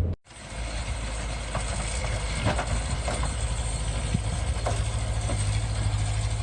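Vehicle engine running steadily with a low drone, with a few light clicks and rattles over it.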